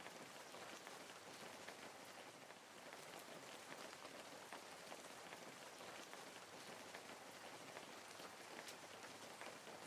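Wood fire crackling: a faint steady hiss with many small, irregular pops and snaps.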